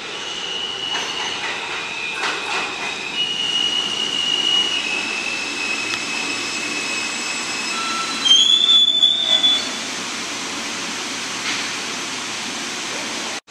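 New York City subway train pulling into a station and braking, with steady rumbling and high squealing from the wheels that shifts in pitch. The squeal is loudest about eight to nine and a half seconds in.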